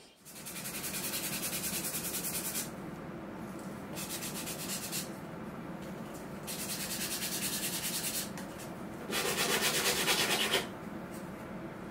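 Hand sanding of wood with a sanding block. It goes in quick back-and-forth strokes, several a second, in four bouts of one to two seconds each, and the last bout is the loudest.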